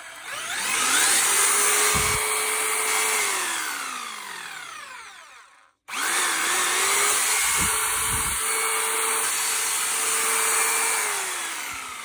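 Makita 4329 electric jigsaw motor running unloaded, with no blade fitted, twice: each time it spins up, runs steadily for a few seconds, then winds down after the trigger is released, with a few low knocks from handling. It is a test run of the repaired jigsaw.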